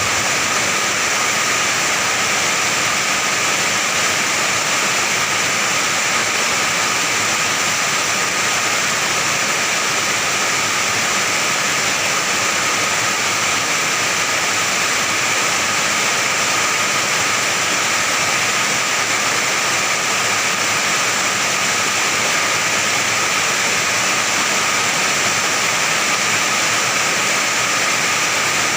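Heavy rain pouring onto an iron roof: a steady, dense hiss that never lets up.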